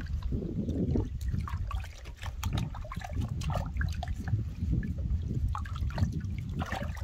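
Water trickling and splashing into a plastic tub as a soaked puppy is dunked and lifted, water streaming off its fur, with a steady low rumble underneath.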